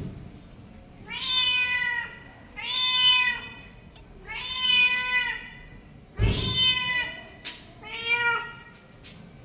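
A domestic cat meowing repeatedly: five drawn-out meows of about a second each, a little more than a second apart, each rising and then falling in pitch.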